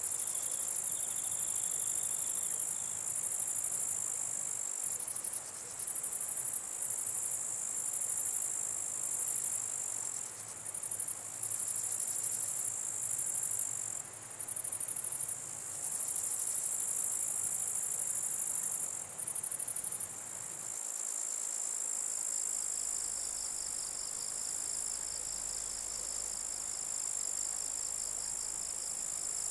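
Singing orthopteran insects: a high-pitched chirring trill that starts and stops in bouts of about a second, over a steady high buzz. About 21 s in the recording changes, and a second, lower pulsing trill joins the steady chorus.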